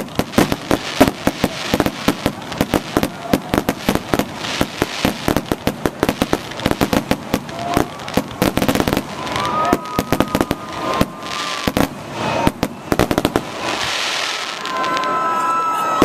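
A rapid barrage of fireworks going off, with many sharp bangs and crackles every second. About fourteen seconds in, the bangs stop and a crowd cheers and whistles.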